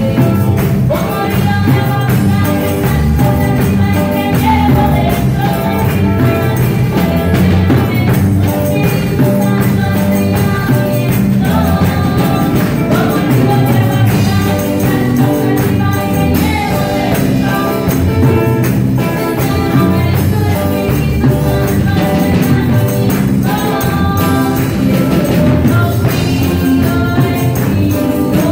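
A live worship band playing an upbeat song: drum kit, electric and acoustic guitars and bass guitar through amplified speakers, with voices singing.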